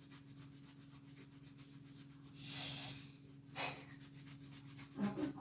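A short rubbing, scuffing noise about halfway through and a briefer one a second later, like parts or a rag being handled, over a steady low hum.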